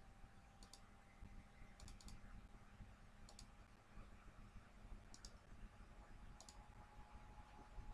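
Faint computer mouse clicks, five brief clicks a second or so apart, over a quiet, steady room hum.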